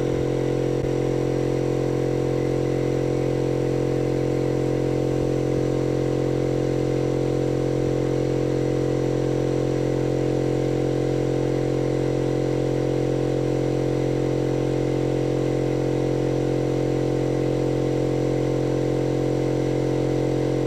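Air compressor motor and pump running steadily as it fills its tank close to full pressure: a loud, even hum that does not change.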